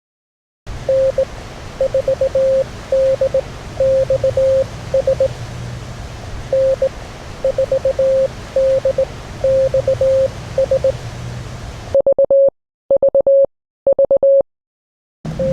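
A callsign in Morse code received on a ham radio transceiver: a single tone keyed in dits and dahs over steady band hiss. Near the end come a few louder, clean Morse characters with no hiss between them.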